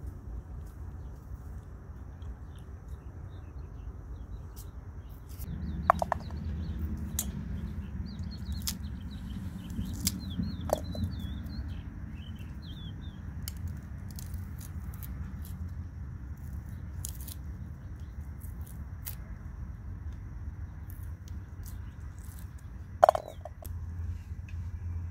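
Garlic cloves being peeled with a small knife and dropped into an enamel bowl, a few landing with a short ringing clink, the loudest near the end. Small birds chirp in the background over a low steady hum.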